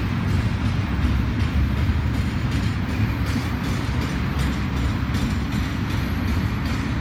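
Double-stack intermodal container freight train rolling past, a steady low rumble of its cars and wheels on the rails.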